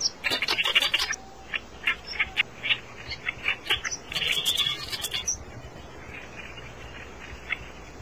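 Oriental reed warbler nestlings begging at the nest as the parent brings food: a dense run of short, high chirps for about five seconds, then only scattered chirps.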